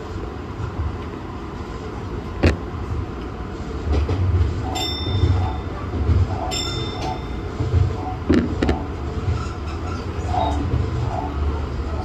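Commuter train running at speed, heard from inside: a steady rumble of wheels on rail with irregular low thumps and a few sharp clacks over rail joints and points. Two short high-pitched beeps sound near the middle.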